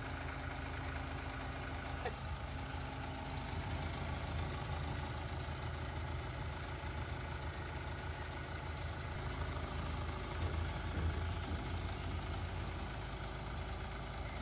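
Ashok Leyland six-wheeler truck's diesel engine idling steadily, with a brief click about two seconds in.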